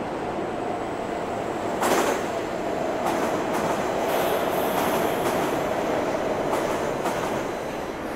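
London Overground Class 378 electric train running into the platform: a steady rumble of wheels on rail with a thin, steady wheel squeal over it and a single knock about two seconds in, growing louder as it passes and easing off near the end.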